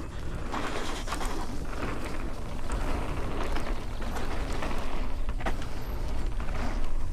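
Mountain bike being ridden along a dirt woodland trail: tyre noise on the ground, with many small clicks and rattles from the bike and a low wind rumble on the mic, growing slowly louder.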